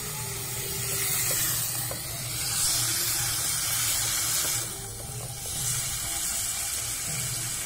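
Freshly added pumpkin pieces sizzling in hot oil in a metal karahi, a steady hiss that swells in the middle and dips briefly about five seconds in.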